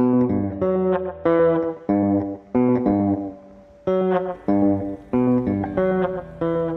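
Background music: an instrumental passage of plucked notes that start sharply and fade, about two a second.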